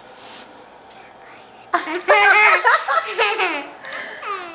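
Laughter: a run of high-pitched giggles starting a little under two seconds in and lasting about two seconds, with a fainter trailing laugh near the end.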